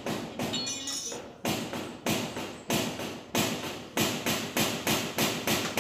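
Hammer blows on the metal trellis door while it is being fitted: about a dozen sharp strikes, coming faster in the second half.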